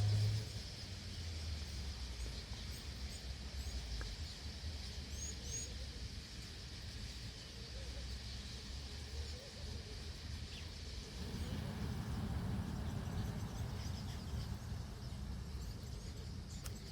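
A large flock of birds swirling close by: the soft rushing whir of many wingbeats swells about two thirds of the way through, with faint high chirps scattered over it.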